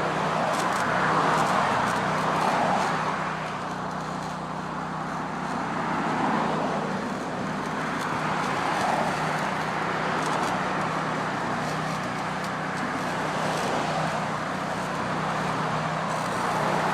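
Arc welding, a steady crackling hiss that swells and eases, over a steady low hum.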